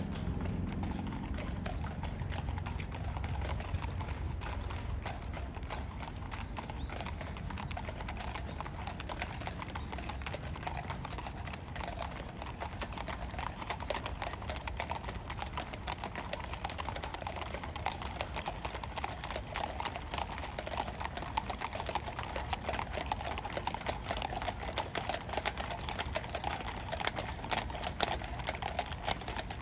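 Many horses walking on stone paving, their hooves clip-clopping in a dense, overlapping patter.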